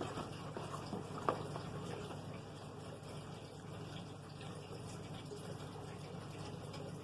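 Faint eating sounds, chewing with a few small mouth clicks in the first second or two, over a steady low hum.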